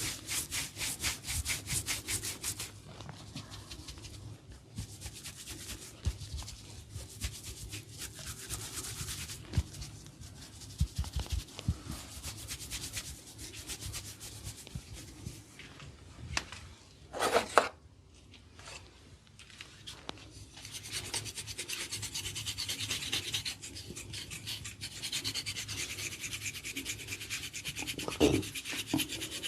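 Hands rubbing and scratching an oiled scalp and hair during a head massage: fast rhythmic strokes at first, then steadier rubbing and scratching. A short, louder sharp sound comes past halfway and another near the end.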